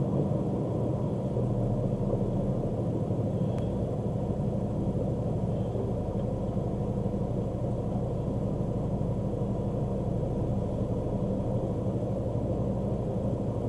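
A vehicle engine running at a steady speed, giving an even low hum with no change in speed.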